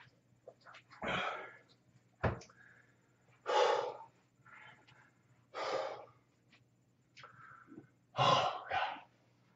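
A man breathing hard, winded from exercise: heavy breaths out every two to three seconds, the last two close together, with quieter breaths between. A single short thump about two seconds in.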